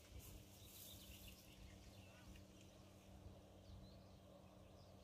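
Near silence: faint outdoor ambience with a few faint, short high chirps.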